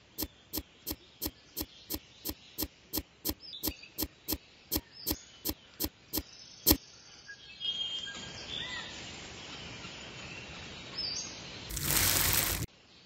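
Miniature shovel digging into sand in short sharp strokes, about three a second, for the first several seconds. A few faint bird chirps follow, then a brief loud rush of sand poured from a small bucket into a toy trailer near the end.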